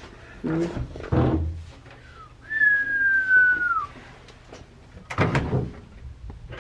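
A single high whistled note, held for about a second and a half and dropping in pitch at its end. It comes after brief voice sounds and before a short knock.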